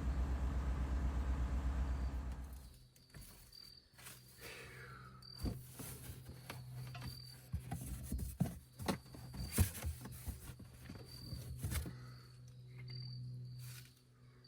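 A steady low hum fades out about two and a half seconds in. A cricket then chirps in short high pulses about once a second, over scattered clicks and knocks.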